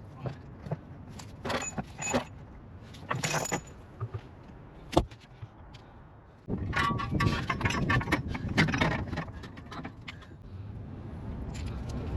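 Metal tools and car parts clinking and clattering during hands-on repair work: scattered clinks, a single sharp knock about five seconds in, then a few seconds of dense rattling and clattering.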